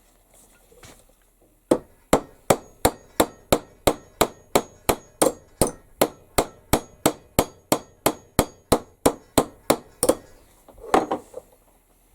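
A hammer striking a rivet over and over, about two dozen quick even blows, roughly three a second, peening the rivet end down over its burr; the blows stop about ten seconds in.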